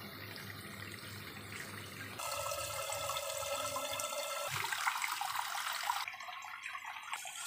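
Kitchen tap running into a steel sink, the water splashing over a plastic-wrapped frozen chicken in a plastic bowl. The start is a low hum, and the louder water noise comes in suddenly about two seconds in.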